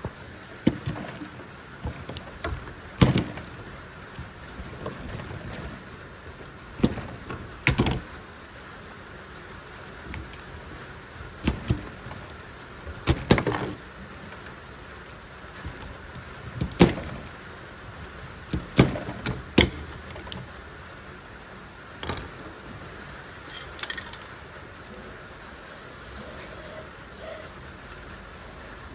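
Scattered clicks and knocks of small parts and hand tools being handled over a steady background hiss, as a washer filler-neck elbow is made up from radiator hose and the original plastic end pieces.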